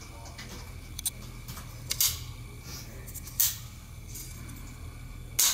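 A few sharp mechanical clicks, the loudest about two, three and a half and five and a half seconds in, over a low steady hum.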